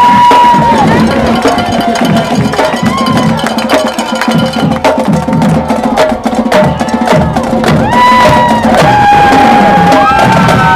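High school marching band passing by: the drumline plays a marching cadence of sharp, wood-block-like clicks and drum hits, with held pitched notes sounding over it.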